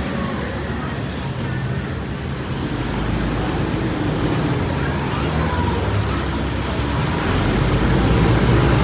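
Busy city street traffic, with motor vehicle engines running and growing louder toward the end.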